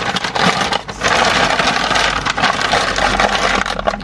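White paper takeout bag being crumpled and rustled close to the microphone: a dense, crackling rustle with a brief pause a little under a second in.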